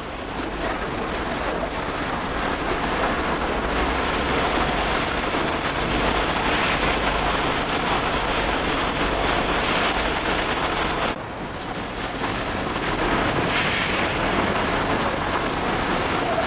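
Steady machine noise of an electro-hydraulic press brake at work, with a sudden dip in level about eleven seconds in.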